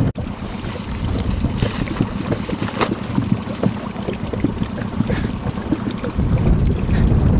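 Wind buffeting the microphone: a loud, uneven rumble that rises and falls, with no steady engine note.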